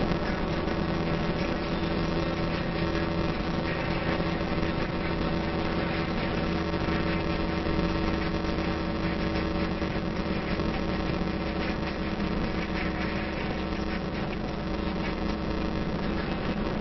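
Steady engine hum and road noise heard from inside a moving vehicle cruising at an even speed.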